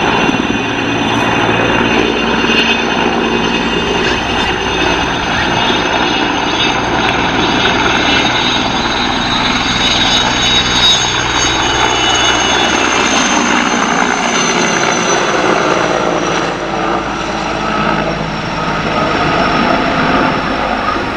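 Erickson S-64 Air-Crane heavy-lift helicopter, its twin turboshaft engines and rotor running loudly as it hovers low with its snorkel hose down and then climbs away overhead. A high turbine whine sits over the rotor noise.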